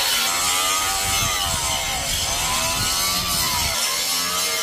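Electric angle grinder with its disc pressed into a steel knife blank, the motor's whine dropping in pitch under load and recovering, twice, over the hiss of the disc on the steel.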